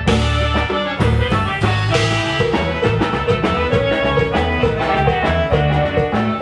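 Live band playing Latin music at high volume through a large PA sound system, with a heavy bass line and drum kit.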